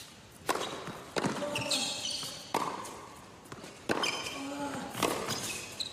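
A tennis rally on an indoor hard court: a racket strikes the ball five times, a second or so apart, and sneakers squeak sharply on the court between shots.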